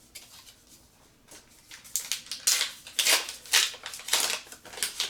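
Foil trading-card booster pack wrapper being torn open and crinkled by hand: a quick run of about eight sharp rustles, starting about two seconds in after a quiet start.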